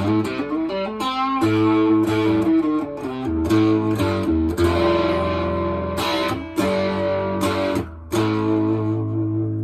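Electric guitar played through a four-knob Harmonic Percolator-style fuzz pedal prototype: driven chords and notes ring out, with short breaks a few times before playing resumes.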